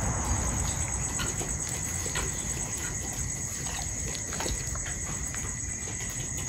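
Crickets trilling steadily at a high pitch, with a few short soft clicks and taps from a puppy eating rice out of a metal pan.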